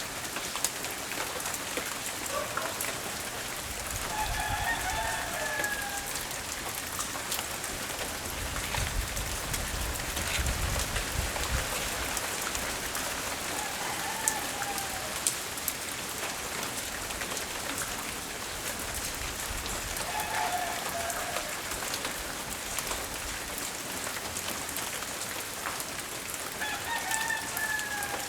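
Steady rain falling, with the patter of individual drops. A rooster crows faintly four times, about every seven seconds, and a low rumble rises and fades around the middle.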